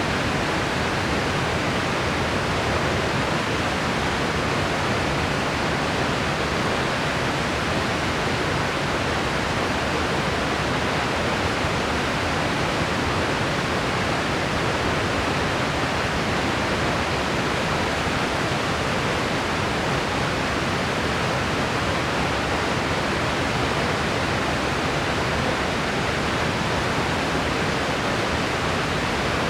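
Steady white noise: an even, unchanging hiss with no breaks or events.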